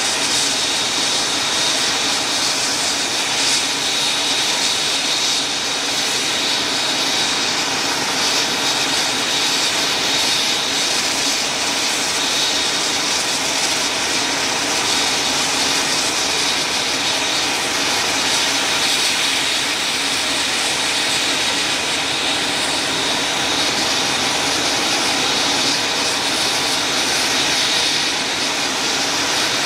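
AH-64D Apache helicopters' twin turboshaft engines running steadily at ground idle, a loud even rush with a high turbine whine held on one pitch.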